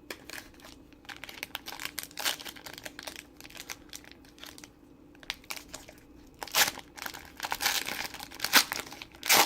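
Trading-card pack wrapper crinkling and tearing open, in irregular crackles with louder bursts about two-thirds of the way through and near the end.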